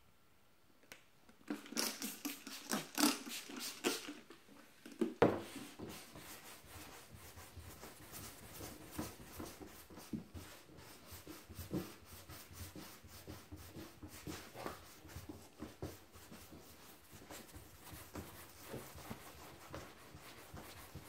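Clay bar rubbed back and forth over the painted aluminium hood to lift overspray from the new clear coat: a quiet, rhythmic rubbing drag. The strokes are loudest in the first few seconds, with a sharp tap about five seconds in, then go on more softly.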